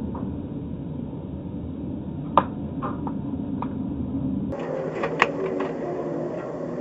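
Road and engine noise of a car driving on a highway, heard from inside the car as a steady rumble, with a few sharp clicks: the loudest about two and a half seconds in, and a cluster of others a little after five seconds.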